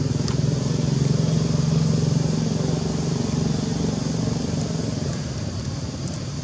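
A vehicle engine running with a steady low hum. It is strongest for the first two or three seconds, then slowly fades.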